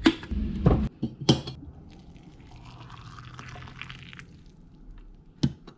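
Water poured from an electric kettle into a stainless steel tea infuser holding spruce tips, a steady splashing hiss lasting about two seconds. It is preceded by a few sharp knocks in the first second and a half, and there is another knock near the end.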